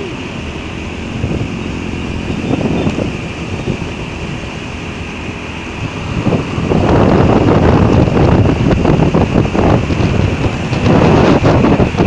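Wind buffeting the microphone of a moving vehicle, with engine and road noise underneath; the buffeting grows markedly louder about six and a half seconds in and stays loud.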